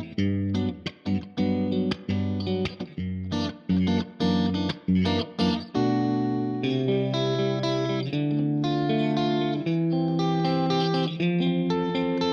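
Squier Affinity Series Stratocaster electric guitar played through an amp. For the first six seconds or so it plays short, choppy chords, stopped one after another; then held chords ring out, changing about every second or so.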